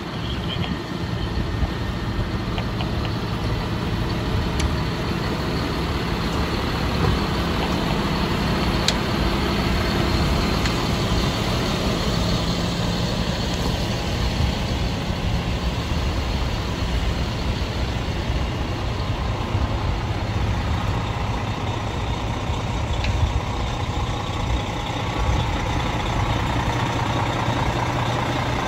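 Fire engine diesel engines running with a steady low rumble at close range. Near the end a second fire engine pulls up alongside.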